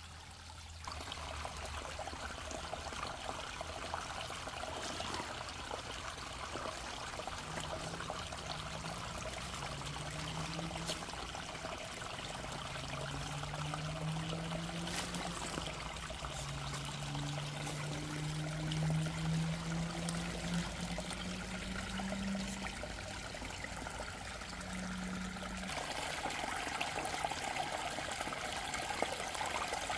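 Shallow creek water trickling over rocks, with the RC crawler's Hobbywing Fusion SE 1800kV brushless motor whining in a series of short, rising spurts as it is throttled through the water, along with scattered light clicks of tires on rock.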